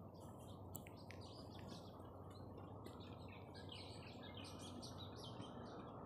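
Small birds chirping in the trees: many short, high chirps, busiest in the second half, over a low steady background hum.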